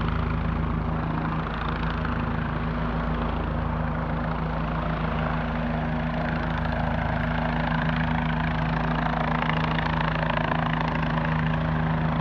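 Helicopter hovering low overhead, its engine and rotors running with a steady low hum and rushing noise.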